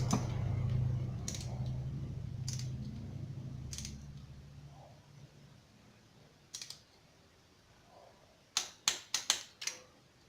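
Sharp metallic tool clicks from tightening spark plugs: a few single clicks, then a quick run of about six near the end. A low steady hum fades away over the first few seconds.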